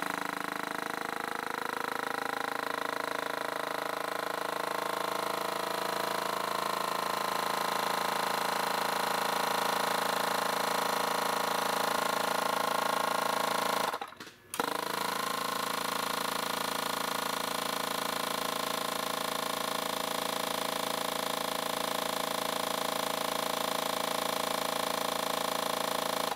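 Electric vacuum pump for the brake booster running after the key is switched on, a steady motor-and-pump drone drawing vacuum. It cuts out for about half a second midway and then starts again.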